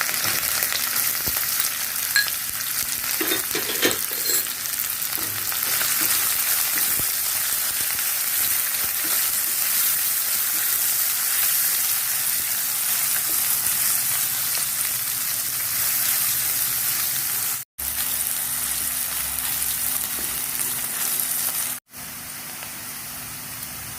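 Chopped onion sautéing in hot oil in a kadhai: a steady sizzle, with a spoon stirring now and then. The sizzle breaks off twice briefly near the end and is quieter for the last couple of seconds.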